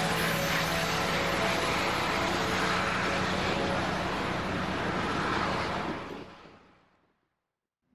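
A ferry's engines and machinery running: a steady low hum under a rushing hiss, fading out to silence about six seconds in.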